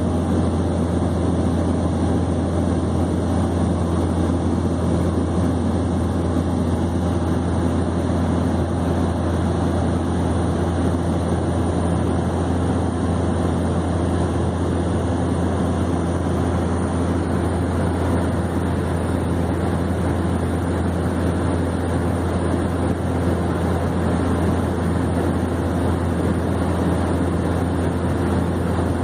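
Steady drone of a Cessna 208B Grand Caravan's turboprop engine and propeller heard inside the cabin in flight, a strong low hum under an even rushing noise.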